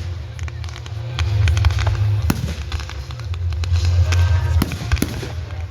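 Fireworks going off in a rapid run of pops and crackles, with music playing underneath.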